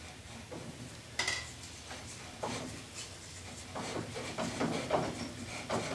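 Metal clinks, knocks and scrapes as the brake drum on a Honda four-wheeler is worked loose from the hub, with a sharp ringing clink about a second in and the knocks coming faster toward the end.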